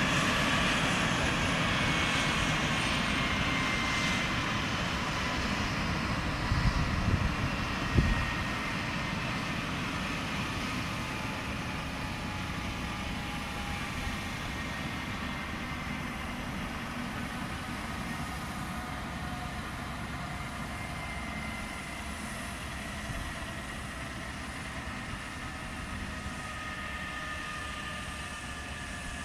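Eurocopter EC135 P2 rescue helicopter's twin turboshaft engines and rotor winding down on the ground after landing: the turbine whine slowly falls in pitch and the sound gradually fades. A few sharp knocks sound about seven to eight seconds in.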